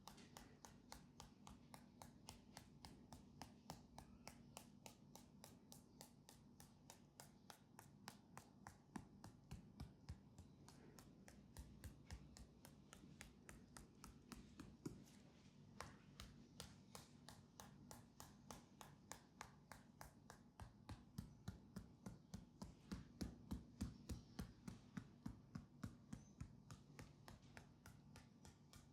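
Hands tapping quickly on a leg in a percussive massage, about four quiet taps a second, louder for a few seconds near the end, over a faint steady hum.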